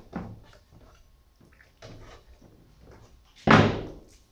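A few faint handling clatters, then one loud bang about three and a half seconds in that dies away within about half a second.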